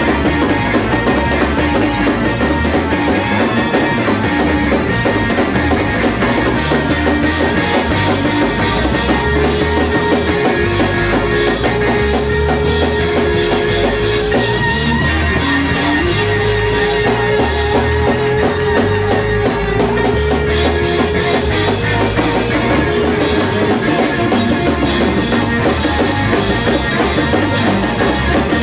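Live church band playing a loud, driving praise break: drum kit pounding a fast beat under guitar, with long held notes on top.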